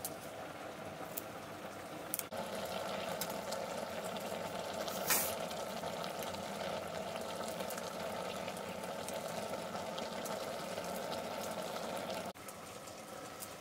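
Water boiling in a metal pot over a wood fire: a steady bubbling hiss, with small crackles from the fire and one sharper crack about five seconds in. It gets louder about two seconds in and drops back near the end.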